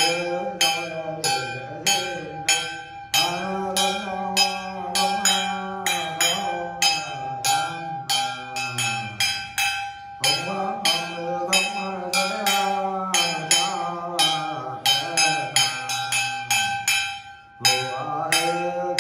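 A Nùng ritual master chanting a sing-song invocation for a New Year misfortune-removal rite, over a small ritual bell shaken in a steady beat about three strikes a second. The chant stops briefly and starts again near the end.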